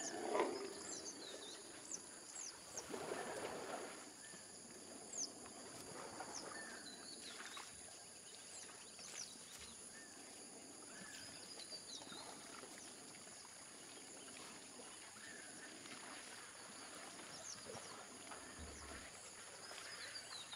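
Natural waterhole ambience: a steady high-pitched drone with many short, quick chirping bird calls scattered throughout. There are louder bursts of noise near the start and about three seconds in.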